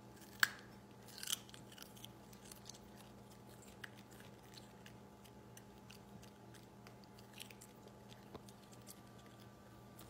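Small dog biting and chewing a raw carrot: two sharp crunches about half a second and just over a second in, then softer, scattered chewing clicks over a faint steady hum.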